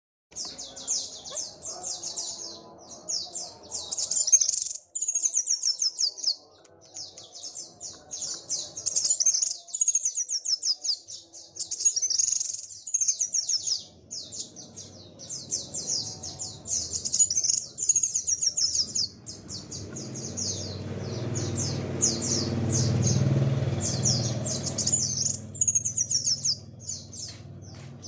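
Male sunbird (kolibri wulung) singing a fast, almost unbroken song of high twittering trills and falling sweeps. In the second half a low rumble swells and then fades behind the song.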